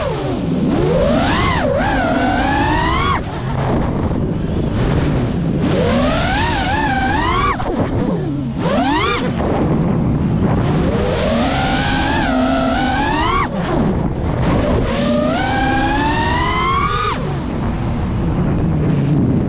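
Geprc Mark 5 five-inch FPV quadcopter's motors and propellers whining over a rushing noise. The pitch sweeps up and falls back again and again as the throttle is pushed and eased.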